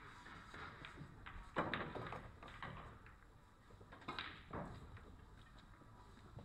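Pool balls clacking as they are handled and set down on the table to gather them for the next rack: several sharp clacks, the loudest about a second and a half in.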